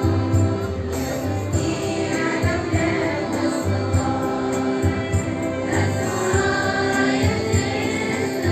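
Music with a choir singing over a steady beat.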